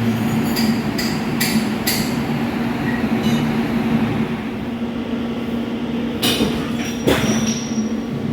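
Steady low electrical hum with several sharp, ringing metallic clinks: about four in the first two seconds and a cluster near the end.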